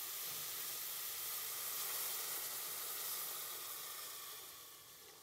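Milk being poured into a hot pot of melted butter, sizzling steadily and dying down near the end.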